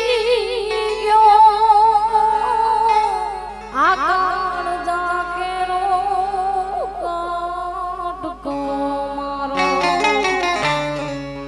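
A woman singing a Gujarati folk song, holding long melismatic notes with a wavering vibrato and sliding into a new phrase about four seconds in, over steady keyboard accompaniment.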